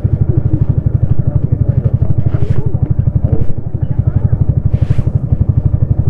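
Yamaha XSR155's single-cylinder engine running while riding, its exhaust pulsing in an even rapid beat, with a brief dip in loudness a little past halfway.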